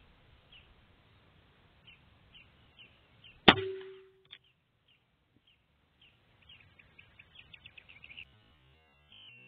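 A single shot from a Benjamin Discovery .22 PCP air rifle, about three and a half seconds in: one sharp crack with a brief ringing tail. Faint bird chirps come before and after it, with a quick run of chirps near the end.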